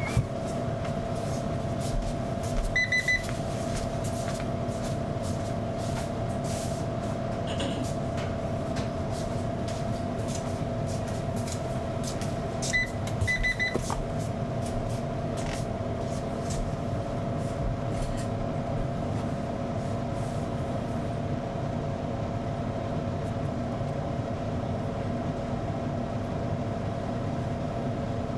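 Hair dryer running steadily with a constant hum, blowing on a cat's fur. Twice, about 3 and 13 seconds in, a quick cluster of short high-pitched squeaks rises over it.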